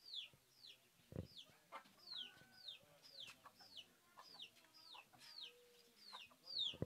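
Faint, repeated peeping of a chick: short high peeps, each falling in pitch, about two a second. A single soft thump comes about a second in.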